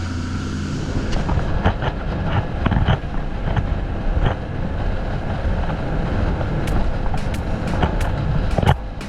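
Fishing boat's engine running on the water, a steady hum that gives way about a second in to a rushing noise with irregular sharp slaps and knocks, like a hull meeting chop.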